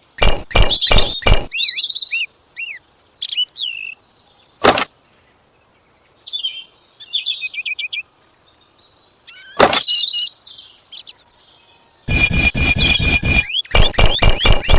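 Birds chirping in short calls, with a few sharp knocks in the first second and a half, single knocks later, and a fast run of knocks starting near the end.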